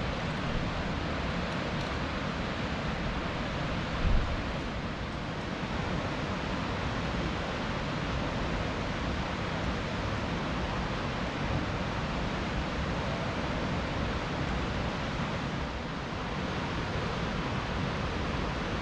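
Steady rushing of water flowing through the gorge below, an even noise with no let-up. A single brief low thump comes about four seconds in.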